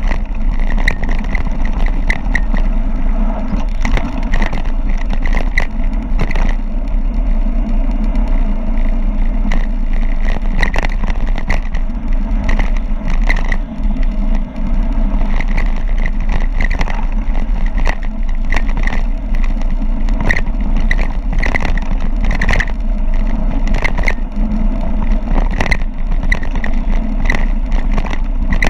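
Mountain bike running fast downhill on rough ground: steady wind and tyre noise, with frequent short rattles and clatters throughout.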